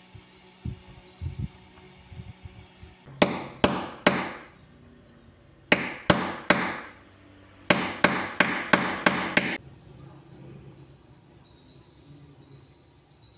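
Sharp knocks as a steel rod is driven into a small aluminium shaft coupler against a wooden workbench: three strikes, a pause, three more, then six quick strikes at about three a second.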